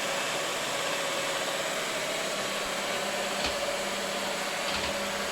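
Feed motor of a 1994 Huron MU 5 milling machine running steadily just after being switched on: an even whir with a steady whine, joined about halfway by a lower hum, and a couple of faint clicks.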